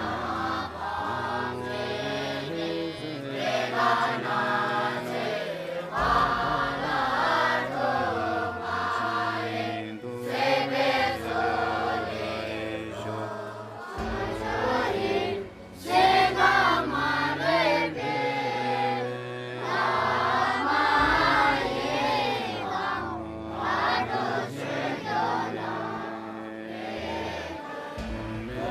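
Background music: a song with group singing over a sustained low accompaniment whose notes change every couple of seconds.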